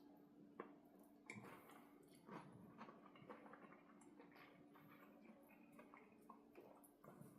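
Faint chewing: a person eating, with small irregular mouth clicks and crackles over a faint steady hum.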